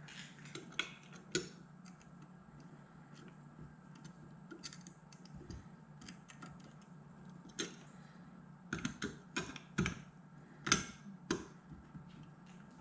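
Small, irregular metal clicks and taps from a screw and distributor parts being handled and set in place, with a quick cluster of sharper clicks in the last few seconds.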